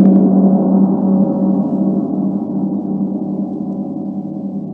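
A gong's ring: one steady low tone with many overtones, slowly fading.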